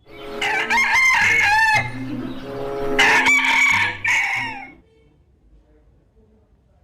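A chicken calling: two long, loud calls, the first right at the start and the second about three seconds in, with a lower stretch between them. The second call ends just before the five-second mark.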